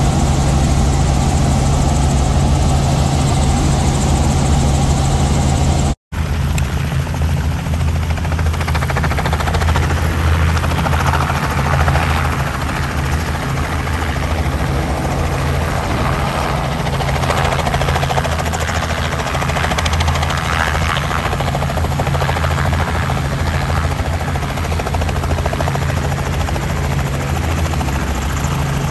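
Robinson R44 helicopter's engine and rotor running steadily, heard from inside the cabin in flight. About six seconds in it cuts off abruptly to a helicopter running on the pad with its rotor turning, heard from outside.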